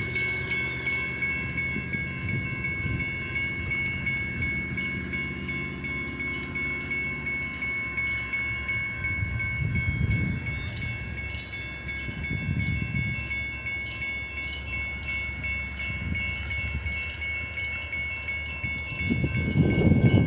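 A railroad bell ringing steadily over the low rumble of a diesel freight train; the rumble swells louder near the end.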